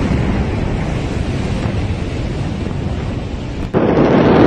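Low, dense rumble from the Beirut port explosion, picked up by a phone microphone in the blast's aftermath, with no single bang. A little before the end it cuts abruptly to louder wind noise on the microphone of another phone recording.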